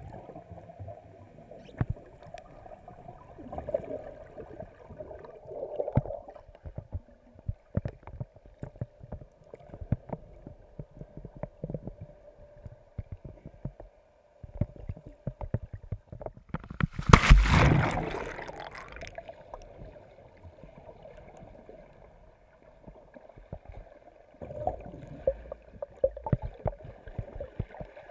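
Water gurgling and sloshing, with many small clicks and knocks over a steady hum, and a loud rush of water and bubbles about seventeen seconds in, lasting about two seconds.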